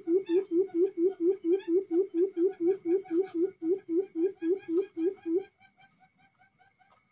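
Tame decoy quail calling: a fast, even run of low hooting notes, about five a second, that stops about five and a half seconds in.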